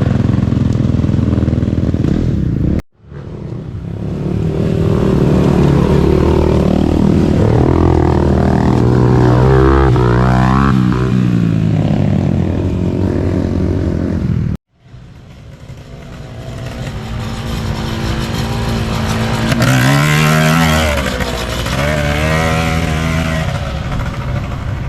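Several small peewee ATV engines revving hard, their pitch rising and falling as they accelerate and back off. The sound breaks off abruptly twice, about three seconds in and at about fifteen seconds, where one clip cuts to the next.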